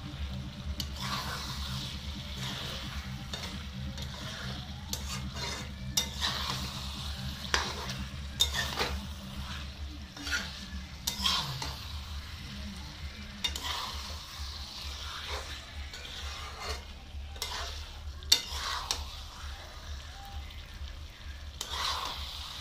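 A steel spatula stirring and scraping a thick curry around an aluminium kadai as it fries, in uneven strokes every second or so with a couple of sharp clinks against the pan, over a soft sizzle. A steady low hum runs underneath.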